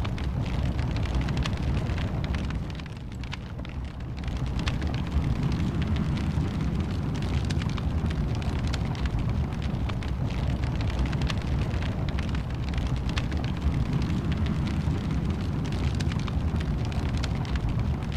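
Wood fire in a fireplace crackling, with frequent small pops over a steady low rumble of flames; the sound dips briefly about three seconds in.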